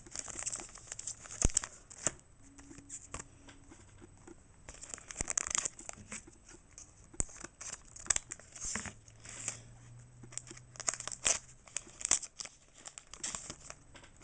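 Foil booster-pack wrapper crinkling and being torn open, with the trading cards inside rustling and clicking as they are handled.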